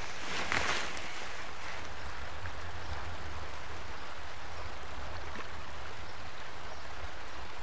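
Steady rushing hiss of flowing river water with a constant low rumble underneath, and a short brighter rustle about half a second in.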